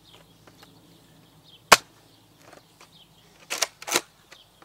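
Spring-powered Nerf Modulus Recon MK II foam-dart blaster being primed and fired. There is a sharp snap about two seconds in, and two more close together near the end.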